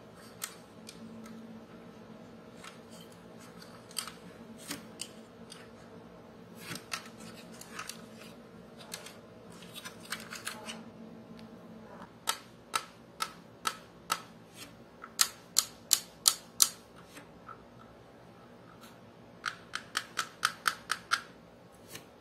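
Sharp clicks and taps of fingers handling the parts of a 1:12 scale diecast Kawasaki Ninja H2R motorcycle model. There are a few scattered clicks at first, then a run of louder clicks about two a second, and near the end a quick burst of about seven.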